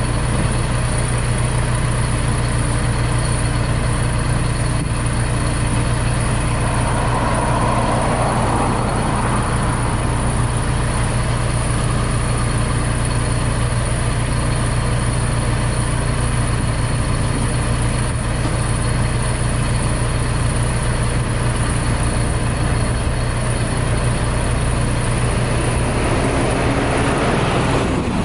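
Diesel engine of a WhiteGMC cab-over garbage truck idling steadily, a deep even hum. Its pitch rises briefly near the end.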